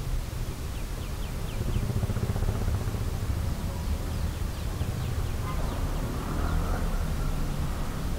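A bird calling in short repeated chirps: a quick run of about five near the start and another run about midway, over a low steady rumble.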